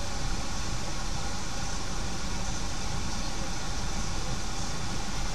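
Steady car engine and tyre noise on a rain-wet road, heard from inside the car's cabin in slow traffic.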